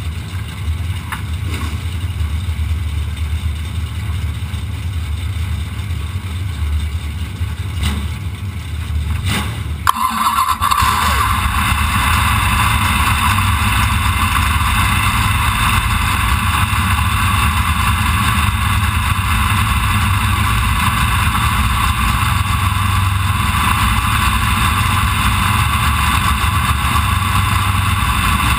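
B-Mod dirt-track race cars idling in the pit line. About ten seconds in, after a sharp click, the engine right under the camera fires and runs at a steady idle, and the sound becomes louder and harsher.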